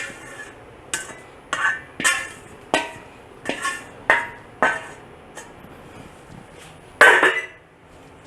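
A cooking utensil knocking and scraping against a metal pot as cooked basmati rice is stirred: about eight irregular clinks, then a longer, louder scrape about seven seconds in.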